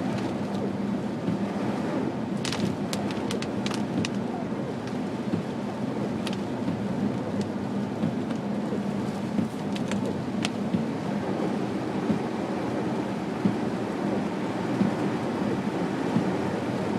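Inside a car driving on a wet, snow-covered road: a steady rumble and hiss of tyres and engine, with a few sharp clicks, several close together a couple of seconds in and more around the middle.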